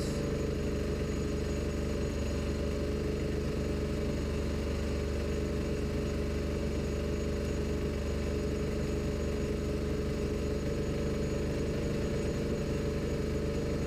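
Honda GX160 single-cylinder four-stroke engine on a small generator running steadily at constant speed.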